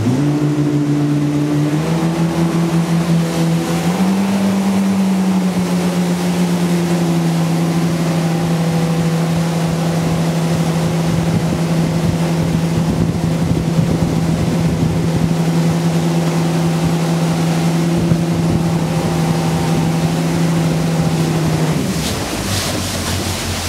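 Yamaha 242 Limited jet boat's twin engines running under way, with water and wind rushing past. The engine note steps up twice in the first few seconds, holds steady, then drops away near the end as the throttles come back.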